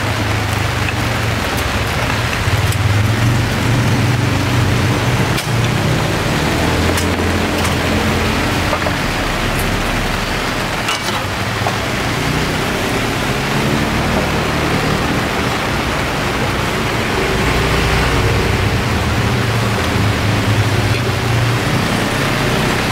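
Heavy rain falling steadily, with a low rumble underneath and a few brief light clicks.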